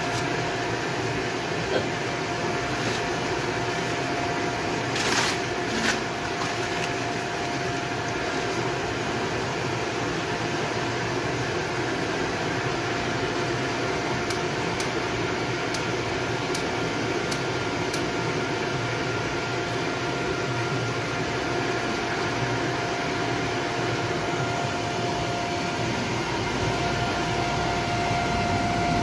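Gas forge's electric blower running steadily with a constant whine, with a few faint ticks partway through. Near the end a low roar rises as the burner lights inside the forge.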